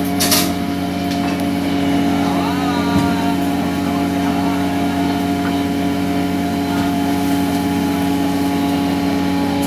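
Steady, even drone of a longline fishing vessel's engine and deck machinery running, with a brief hiss just after the start and a single knock about three seconds in.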